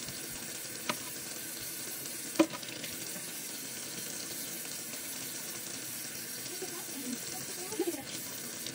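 Tap water running steadily into a metal bowl in a stainless steel sink. Two sharp clicks cut through it, the louder one about two and a half seconds in.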